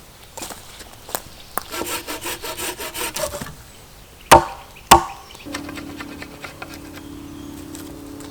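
A short spell of quick sawing strokes on wood, followed by two sharp wooden knocks about half a second apart, the loudest sounds here. A steady low buzz sets in after that.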